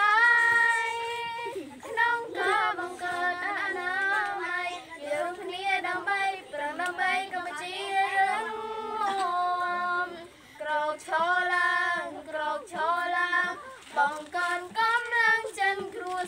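A boy and a girl singing a Khmer song together without instruments, in high child voices, with held, wavering notes and short breath pauses between phrases.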